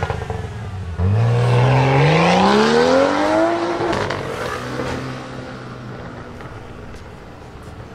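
Sports car accelerating hard: the engine note climbs steadily in pitch for about three seconds, breaks off at a gear change, then fades as the car pulls away.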